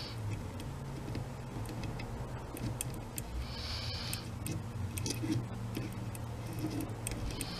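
Soldering iron melting solder into a wire splice: a short, faint sizzle of rosin flux about three and a half seconds in and light crackling ticks from the joint, over a steady low hum.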